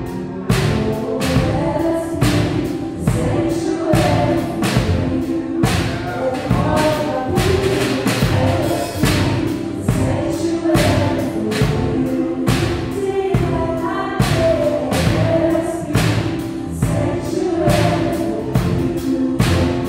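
Live worship band playing: drum kit keeping a steady beat under keyboard chords, with voices singing a slow melody over it.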